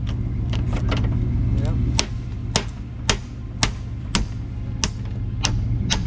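Hammer striking a chisel wedged into the door seam of a steel gun safe: sharp metal-on-metal blows about twice a second as the door edge is forced open. A steady low rumble runs underneath.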